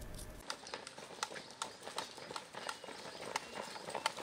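Faint, irregular footsteps of a group of soldiers in boots on a paved yard, starting about half a second in, over quiet outdoor ambience.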